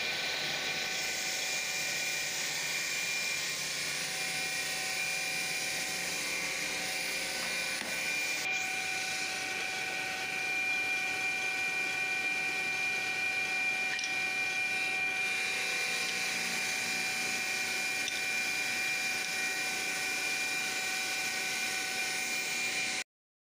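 Multi-blade stone-cutting saw running with a steady whine over a hum, ending suddenly near the end.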